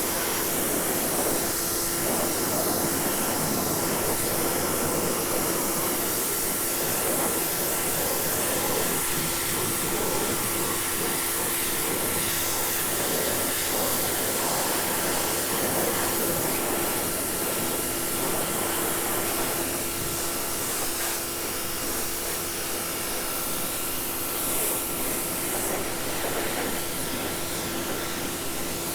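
Prymax electric pressure washer running, its water jet spraying onto composite decking with a steady hiss over a steady electric motor and pump hum.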